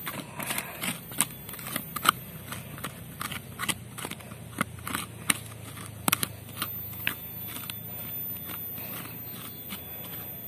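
A hand stirring and scraping dug soil mixed with NPK fertilizer granules: irregular crunchy scratches and clicks, busiest over the first two-thirds and sparser toward the end.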